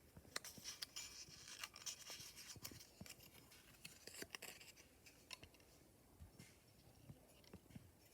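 Quiet dry scratching with many small clicks and taps, busiest in the first half, like hand tools working on paper.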